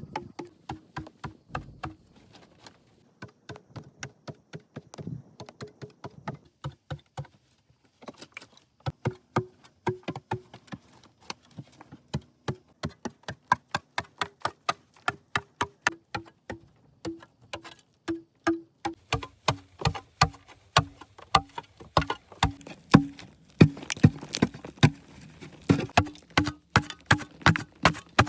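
Rapid, regular knocking, about three or four strikes a second, with a couple of short pauses; many strikes ring briefly with a short tone, like a hand tool repeatedly striking.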